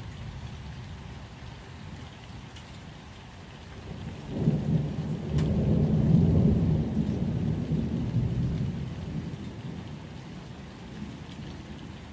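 Steady rain with a long roll of thunder that swells about four seconds in, peaks, and dies away over several seconds.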